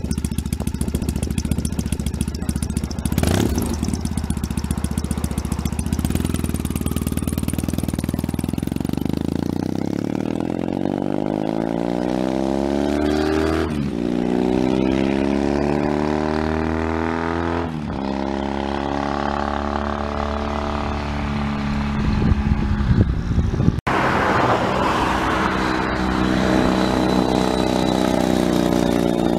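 2005 Triumph Thruxton's parallel-twin engine through a one-off TT exhaust with Lossa Mini reverse-cone silencers. It runs steadily at first, then pulls through the gears with the pitch rising twice and a gear change about 14 and 18 seconds in. It then holds steady, and after an abrupt cut it cruises past at a steady pitch.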